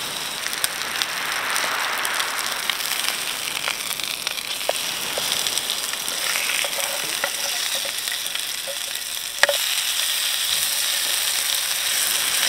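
Lamb cutlets sizzling steadily as they fry in hot oil in a pan, with small spits and pops and the scrape of a wooden spatula turning them. A single sharp click comes about nine and a half seconds in.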